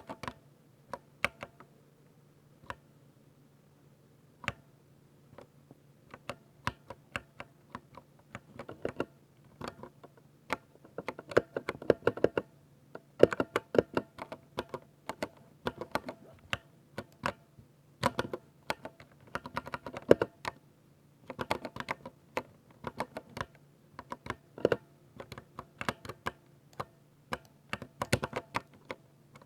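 Typing on a 60% mechanical keyboard with silver speed switches: crisp separate keystrokes, sparse at first, then fast runs of rapid typing from about ten seconds in.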